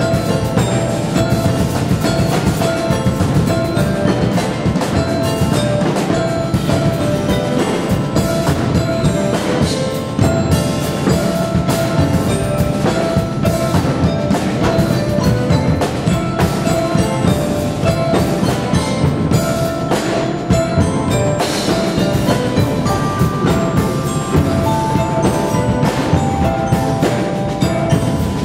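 Percussion ensemble playing live: a dense, steady stream of notes from many mallet instruments such as marimbas. A few long held notes come in near the end.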